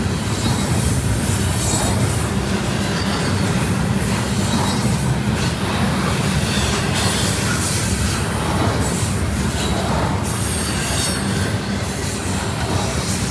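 Freight train cars rolling past close by, a steady heavy rumble of steel wheels on rail with intermittent wheel squeal.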